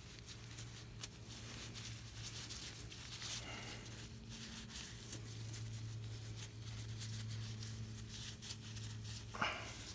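Faint handling noise: a gloved hand working a rag around a power steering pump's hose fitting, with scattered light clicks and rustles, the loudest click near the end, over a steady low hum.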